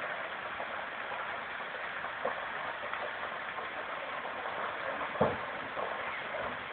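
Large building fire burning with a steady noise and a few sharp pops, the loudest about five seconds in.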